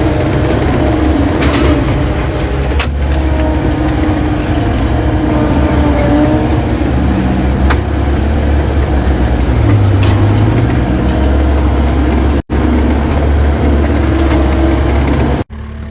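Compact track loader (tracked skid steer) with its diesel engine running hard as it works, a deep rumble with a shifting engine tone and a few sharp knocks. The sound breaks off briefly twice near the end.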